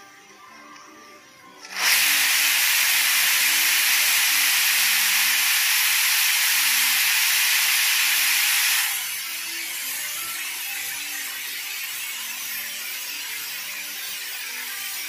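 Aluminium pressure cooker letting off steam under its weighted whistle. A loud hiss starts about two seconds in, holds for about seven seconds, then drops to a softer steady hiss. This is the sign that the cooker has come up to pressure.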